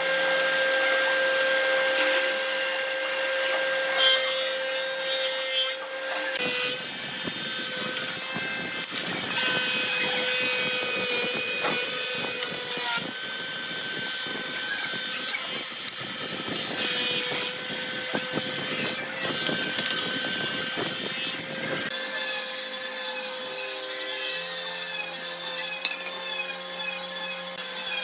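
Power tool working wood: a steady motor whine, with a rougher stretch of cutting noise from about six seconds in until about twenty-two seconds.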